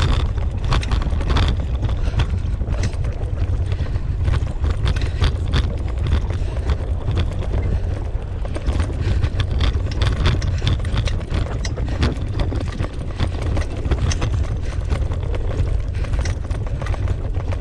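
Wheels of a dog-pulled dryland mushing rig rolling over a rough dirt trail: a steady low rumble with constant rattling and quick clicks, while a team of Siberian huskies runs ahead.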